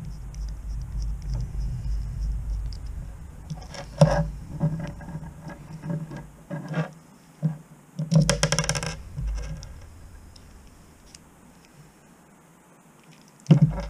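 Small tools and metal parts handled on a workbench: scattered clicks and scrapes, with a short jangling rattle about eight seconds in.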